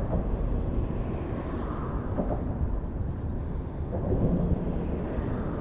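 Low, steady rumble of wind buffeting the microphone outdoors, with no distinct events.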